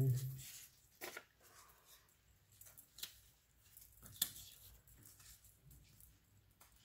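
Faint rustling and a few light clicks and taps of paper scraps and craft tools being handled on a tabletop, the sharpest taps about one, three and four seconds in.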